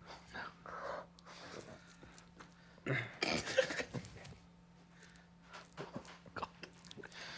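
Breathy, stifled laughter and snorts from people trying to stay silent, loudest about three seconds in, with a few short taps in between.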